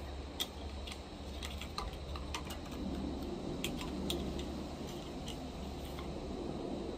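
Scattered light clicks and ticks of an arrow being pushed back along the rail of a Barnett Hyper Raptor crossbow. The slight click is not the nock seating against the string, so the arrow is not yet fully home.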